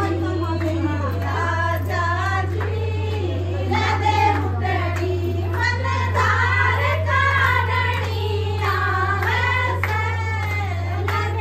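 A group of women singing a traditional pre-wedding folk song (geet) together, with a steady low hum underneath.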